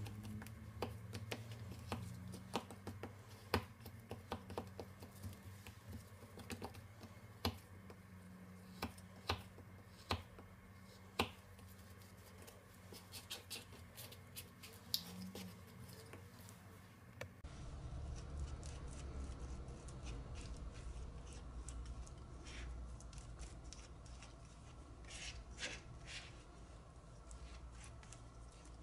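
A blade chopping and mashing blocks of frozen acrylic paint on a hard surface. For the first half it makes many sharp clicks and taps as it cuts through the frozen blocks. About halfway through this gives way to softer, steadier squishing and scraping as the softened paint is mixed together.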